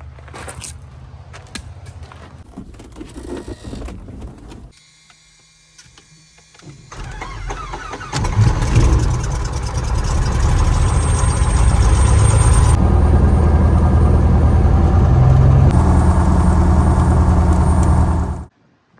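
Cessna 170's six-cylinder piston engine running, with a steady low hum at first. After a short lull it builds about seven seconds in and runs loud and steady, then cuts off abruptly near the end.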